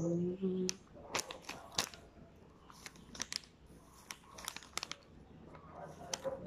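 Foil snack packet crinkling as a small child's hand presses and picks at it: a scatter of sharp crackles. A brief hummed voice sound right at the start.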